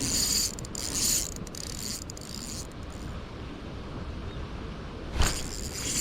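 Spinning reel being cranked to retrieve line, a rhythmic rasping whir with each turn of the handle. The cranking pauses for about two seconds past the middle, a sharp click comes just after five seconds, and the cranking starts again.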